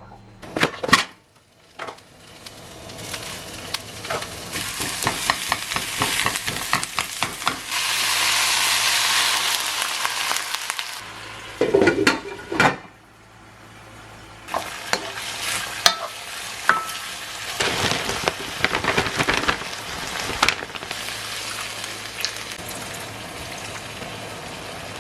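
Food frying in a pan: a steady sizzle full of spitting crackles. It swells to its loudest about eight to eleven seconds in, dips briefly around thirteen seconds, then resumes. Sharp knocks come near the start and around twelve seconds in.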